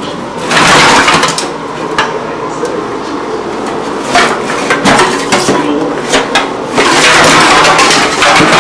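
Empty aluminium drink cans clattering and clinking against each other in a jostled cardboard box, in irregular bursts of sharp metallic knocks. Near the end a louder, continuous rush of sound sets in.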